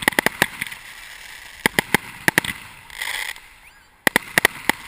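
Fireworks display shots going off at close range: three quick volleys of sharp bangs, several in each, with a short hiss between the second and third.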